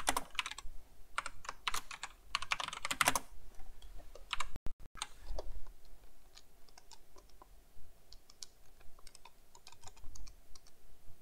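Typing on a computer keyboard: quick runs of keystrokes for about the first three seconds, then sparser, fainter key clicks.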